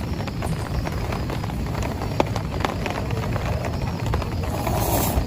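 Heavy rain falling on a tent, with many sharp single drop hits over a steady hiss and a low rumble underneath; the hiss swells briefly near the end.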